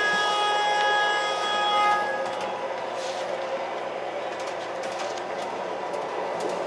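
Onboard sound effects of MTH Proto-Sound 3 O-gauge PCC streetcars: a steady tone of several notes that stops about two seconds in, then a steady rushing noise.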